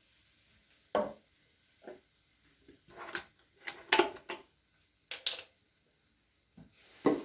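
A string of short knocks and squeaks from objects being handled during cleaning, about ten at uneven spacing, the loudest about four seconds in.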